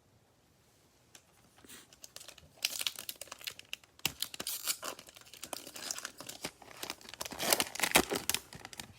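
Foil trading-card pack wrapper being torn open and crinkled by hand. It starts after a couple of quiet seconds as a dense run of crackles, loudest near the end.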